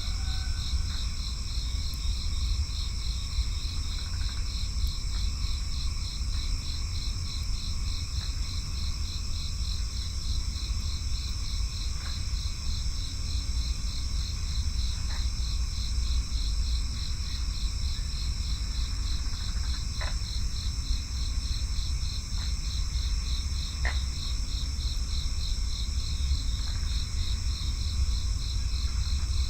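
Crickets chirping in a steady chorus, an even, rapidly pulsing high trill that never lets up. A steady low rumble runs underneath.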